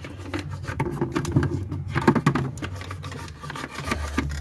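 Light clicks, taps and rubbing of small plastic dolls and toy dollhouse furniture being moved by hand, over a steady low hum.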